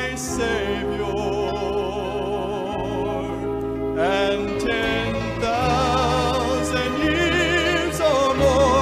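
Gospel music: voices holding long notes with vibrato over steady instrumental accompaniment, the notes changing about four seconds in and again near the end.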